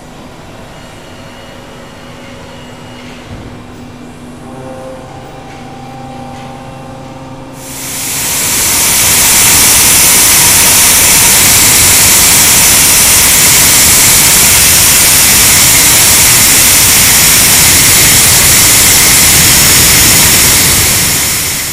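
Deckel Maho DMU80T CNC milling machine running a high-speed milling program, its spindle at about 9,500 rpm, giving a steady hum with a few faint tones. About eight seconds in, a much louder steady high hiss sets in and holds as a small end mill cuts a brass plate, fading out at the very end.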